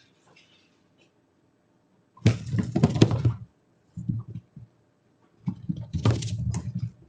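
Dry Cheerios cereal being poured, two pours of about a second and a half each, each a dense clatter of many small pieces, with a short lower clatter between them.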